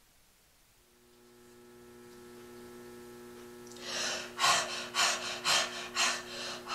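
A puppeteer voicing a dog puppet panting hard and rhythmically, about two breaths a second, like a hot, tired dog that has been running. It starts about four seconds in, after a faint steady hum.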